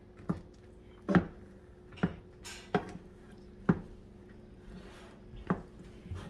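A stirring utensil knocking against a small cooking pot, about six irregular taps, while melting marshmallows and butter are stirred.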